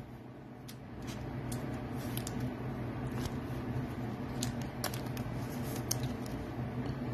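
Steady low room hum with faint scattered clicks and taps of trading cards being handled and set down on a table.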